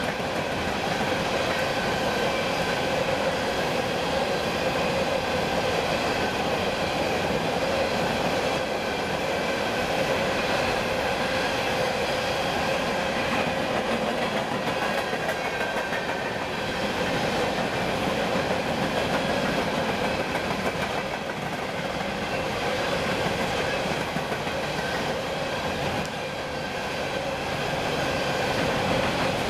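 Freight train cars rolling past, a steady rumble of steel wheels on rail with faint steady ringing tones over it.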